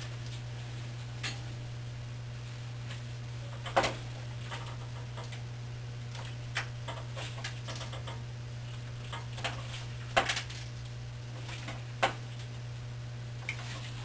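Scattered light taps and clicks as gloved hands work beeswax strips into the groove of a wooden top bar on a paper-lined metal baking tray, the sharpest knocks about four and ten seconds in, over a steady low hum.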